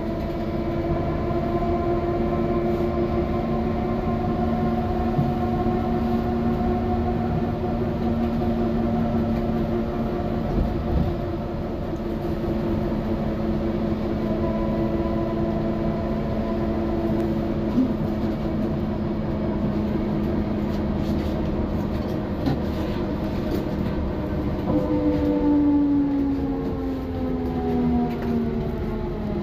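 Solaris Trollino 12 trolleybus's Emit STDa 280-6B electric traction drive whining with several steady tones over road rumble as it runs at an even speed. From about 25 seconds in, the tones fall in pitch together as the trolleybus slows.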